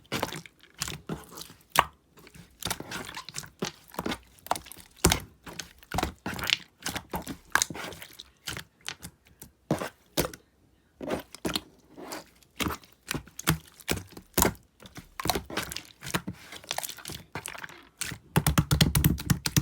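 Slime being squished, pressed and stretched by hand, making many irregular sharp clicks and pops as air pockets burst, with a fast flurry of pops near the end.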